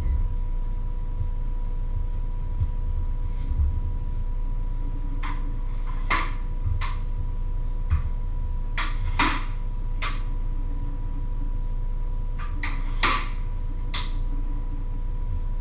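Scattered sharp clicks and knocks, about nine of them in the middle stretch, from a camera tripod being handled and moved, over a steady low hum and a faint steady whine.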